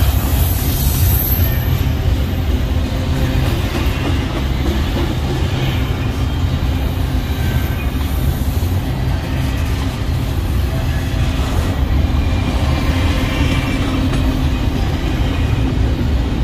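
Union Pacific double-stack intermodal train rolling past close by: a steady loud low rumble of wheels on rail from the container well cars. Faint wheel squeal comes and goes.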